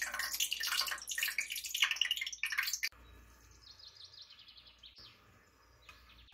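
Tap water running hard into a sink, shut off abruptly about three seconds in. Faint bird chirping follows.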